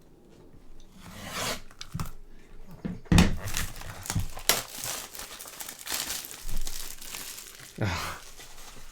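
A trading card pack's wrapper being torn open and crinkled by hand. It starts after about a second, with the loudest tear about three seconds in.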